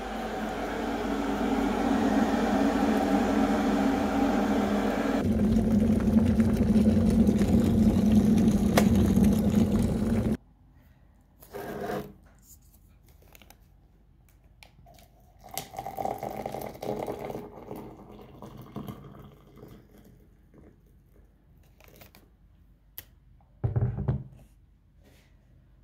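A kitchen appliance heating water runs with a steady hum and a rushing sound. It grows louder, steps up about five seconds in, and cuts off suddenly about ten seconds in. Quieter handling sounds follow, with a few short bursts.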